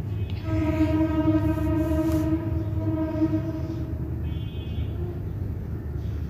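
A train horn sounds as one steady, held note for about three and a half seconds, followed by a brief higher-pitched tone. It is heard from inside a passenger carriage over the low rumble of the train running.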